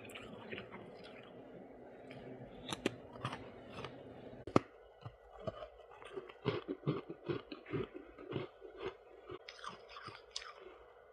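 Close-miked biting and chewing of soft white ice, crisp and crunchy. A single sharp bite is the loudest sound, about four and a half seconds in, and a quick run of crunches follows in the second half.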